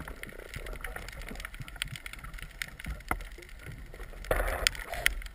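Underwater ambient noise picked up by a camera in a waterproof housing: a steady hiss with scattered sharp clicks and crackles, and a brief louder rush of water about four seconds in.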